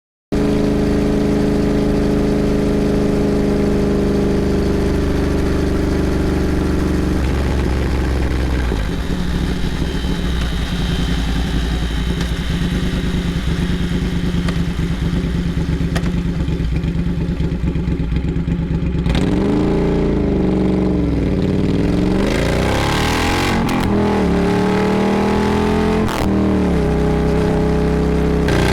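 Triumph Thruxton R's parallel-twin engine through loud Meerkat racing mufflers, running at a steady engine speed for most of the first two-thirds. From about two-thirds of the way in, the engine speed rises and falls repeatedly as it is revved.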